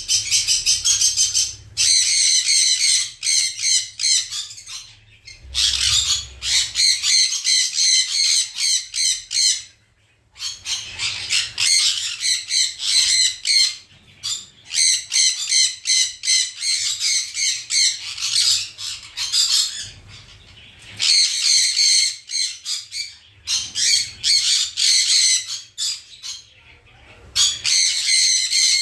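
Sun conures giving rapid runs of harsh squawks, in bursts of a few seconds with short pauses between.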